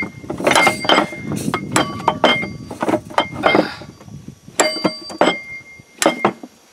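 Steel gears on an International B414 tractor transmission main shaft being smacked up against a pushed-on collar: a series of sharp metallic clanks, each ringing briefly, driving the collar off the shaft.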